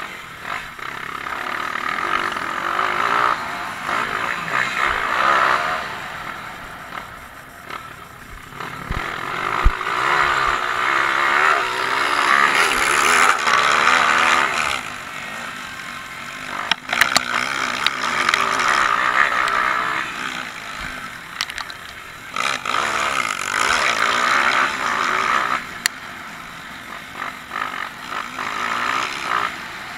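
Dirt bike engine heard close up, revving hard and easing off again and again as the bike accelerates down straights and slows into turns, with a few sharp clicks along the way.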